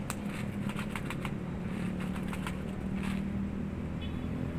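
Steady low rumble of city road traffic with an engine-like hum. During the first second and a half there is a quick run of small sharp clicks, about four or five a second, and a few scattered clicks later.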